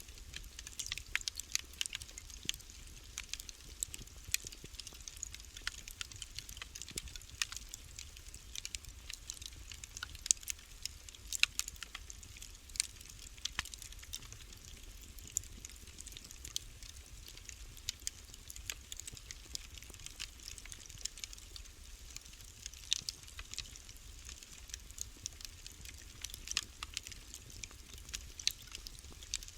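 Wood fire burning in a fireplace, crackling with a steady scatter of small snaps and an occasional louder pop over a low steady rumble.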